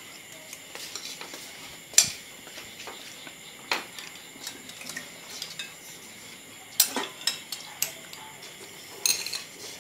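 Metal spoons and chopsticks clinking and scraping against ceramic plates and bowls while people eat: irregular single clinks, a sharper one about two seconds in and a quick run of them near the end.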